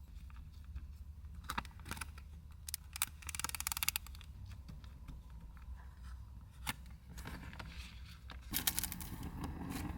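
Small objects being handled up close: scattered clicks and taps, with two short stretches of rustling and scraping, over a steady low rumble.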